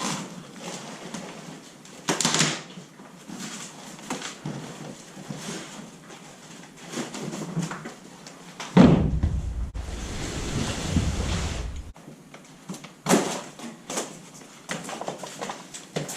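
Irregular knocks, thuds and clatter as freezers are wrestled off a trailer onto a platform by one person. A louder thump comes about nine seconds in, followed by about three seconds of low rumbling.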